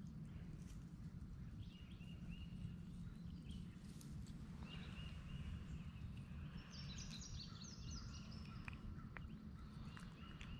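Faint outdoor ambience: a steady low rumble with birds calling, short repeated high calls and a brief trill a little past the middle. A few light clicks are heard near the end.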